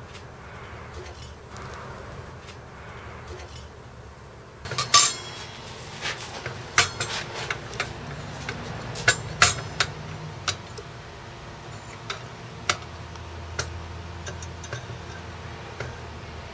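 Sharp metallic clinks and taps from a small cast metal bar being set on the steel pan of a beam balance and the balance being handled. The loudest cluster comes about five seconds in, followed by scattered single clinks.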